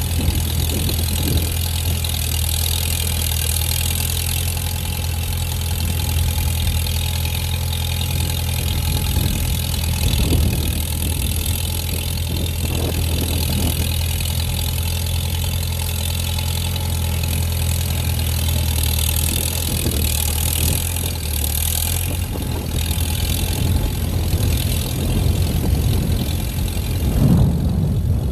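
1953 Farmall tractor's four-cylinder engine running steadily at an even, low pitch as the tractor grades a driveway with a blade hitched behind.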